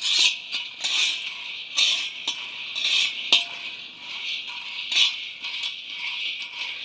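Groundnuts being stirred as they roast in a pan: a steady rustle as the nuts are moved about, with sharp knocks of the utensil against the pan about a second apart.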